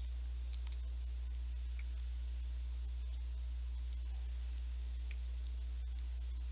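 A steady low electrical hum with faint, scattered clicks of drawing on a computer, about a second apart, the sharpest one about five seconds in.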